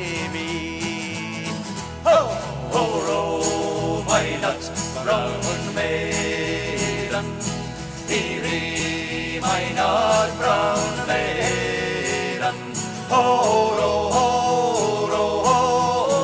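Acoustic folk-band music: two acoustic guitars and a bass guitar playing a Scottish tune, with a melody line carried above them.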